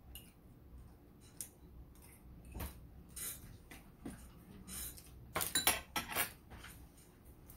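Metal fork clinking and scraping against a serving plate: a few scattered light clicks, then a quick run of sharp, ringing clinks about five and a half seconds in.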